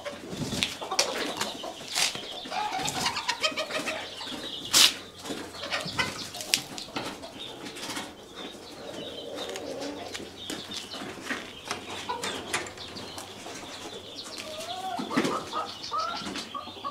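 Chickens scuffling: repeated wing flaps and sharp knocks, with short clucks and squawks, the loudest knock about five seconds in and a burst of calls near the end. The commotion is a rooster going after a newly introduced hen.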